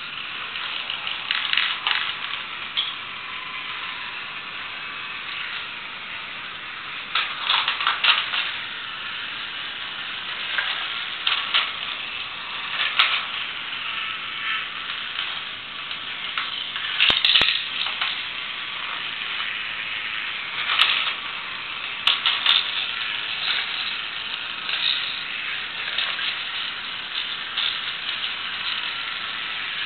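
Battery-powered plastic toy truck and loader set running on its track: a small electric motor and plastic gears buzz steadily. Plastic clatters and rattles come now and then as the toy rocks are scooped up and tipped.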